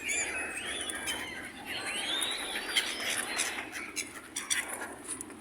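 Birds chirping: a series of short, arching calls, with a few faint ticks near the end.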